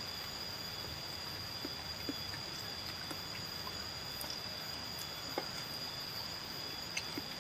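Steady high-pitched trill of insects, with faint scattered clicks and smacks of people eating by hand.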